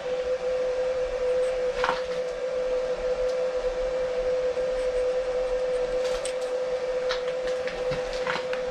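Vertical milling machine running with a steady whine held at one pitch, with a few light metallic clicks and taps from hands working at the vise and workpiece.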